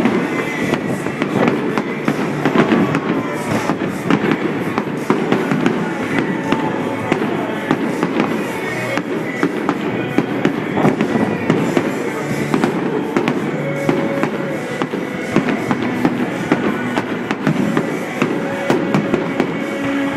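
Fireworks bursting in a dense, continuous run of pops and crackles, with music playing underneath.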